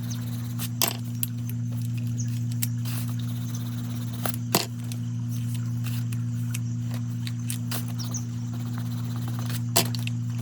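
Pencils scratching on sketchbook paper as colour swatches are drawn, with a few sharp clicks as pencils are picked up and set down, the loudest about halfway through, over a steady low hum.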